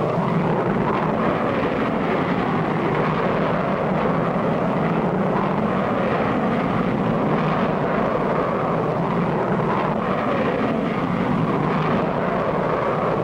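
Jet aircraft engine sound effect, a steady rushing noise without a break, as a vertical-takeoff jet lifts off and climbs.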